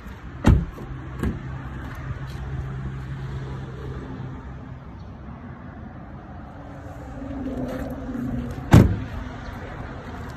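Doors of a 2009 Toyota Highlander being shut: a heavy thump about half a second in, a lighter one just after, and the loudest slam near the end. A low steady hum runs between them and swells with a faint whir just before the last slam.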